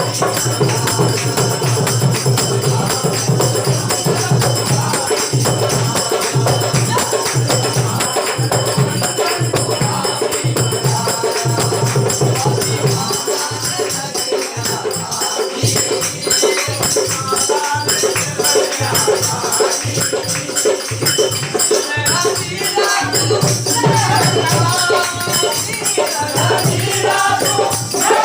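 Marathi devotional vandan geet sung by a folk troupe: a steady held drone and a jingling tambourine-like rattle keep the accompaniment going, with the voices standing out more clearly in the second half.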